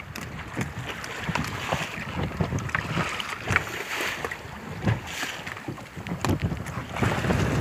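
Wind buffeting the microphone and sea water slapping against the hull of a small wooden fishing boat, with scattered short knocks.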